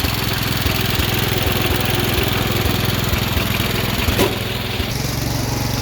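Engine of an old riding lawn mower running, just brought back to life after its fouled spark plug was cleaned. A short click a little past four seconds in, and near five seconds the engine's note changes to a steadier hum.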